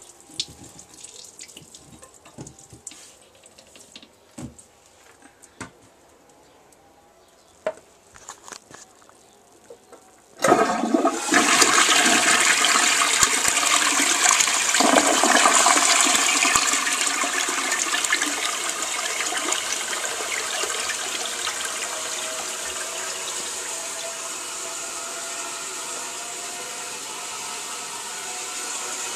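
Crane Plumbing toilet flushing: after several seconds of quiet with a few small clicks, a sudden loud rush of water starts about a third of the way in. It stays strong for several seconds, then slowly eases to a steadier, quieter rush. The owner rates the flush as not so good.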